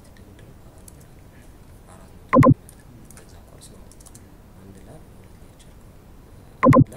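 Faint computer keyboard typing and clicking, with two short loud pitched blips: one about two and a half seconds in and one near the end.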